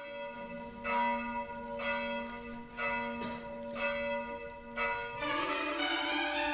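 A bell tolls six times, about once a second, each stroke ringing on as the next comes. About five seconds in, music fades in and grows louder.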